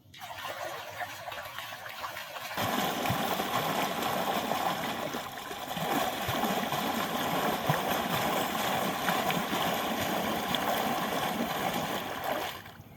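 Running, splashing water, a steady noisy rush that grows louder about two and a half seconds in and cuts off sharply near the end.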